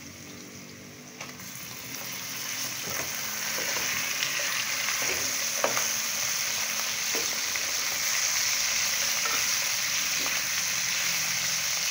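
Raw chicken pieces sizzling in hot oil with browned onions in a metal pot, the sizzle growing louder over the first few seconds and then holding steady. A slotted spatula stirring through it knocks and scrapes against the pot a few times.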